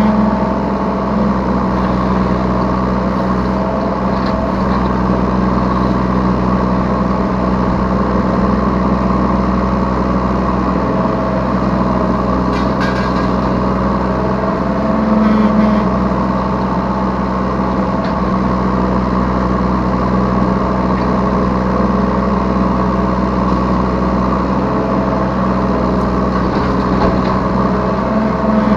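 Yanmar B3Σ 3-ton mini excavator's diesel engine running steadily at working speed, heard from the operator's seat, swelling briefly about halfway through and again at the end, with a few faint knocks in between.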